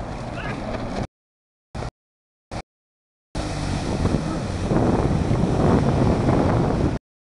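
Jet ski engine running over wind buffeting the microphone and the rush of water spray. About a second in the sound drops out to dead silence, broken by two short blips, then comes back louder before cutting off abruptly near the end.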